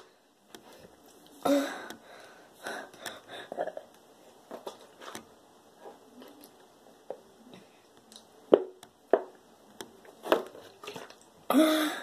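A person gulping a fizzy drink straight from a large plastic bottle: irregular swallows and wheezy breaths, with scattered small clicks. A louder voiced breath or exclamation comes near the end.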